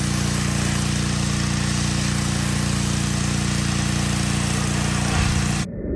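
Gas-engine pressure washer running steadily, its small engine humming under the hiss of the spray. It surges briefly about five seconds in, then cuts off abruptly.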